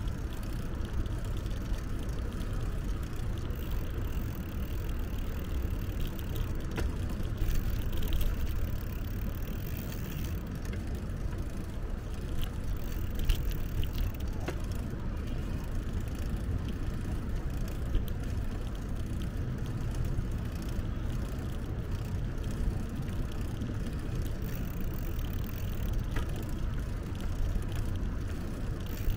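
Steady low rumble from riding a bicycle along a smooth path, a mix of wind on the microphone and rolling tyre noise, with a few faint clicks and rattles.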